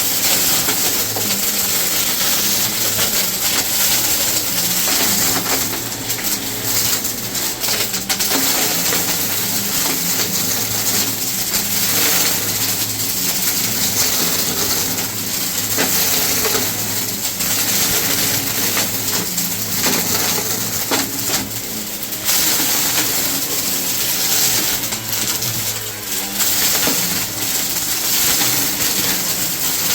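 Vacuum cleaner running steadily: a constant motor hum and airflow hiss, with frequent small clicks and rattles, as of debris being sucked up.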